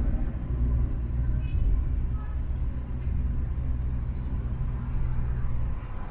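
Vehicle and road traffic noise while driving: a steady low rumble that drops away suddenly near the end.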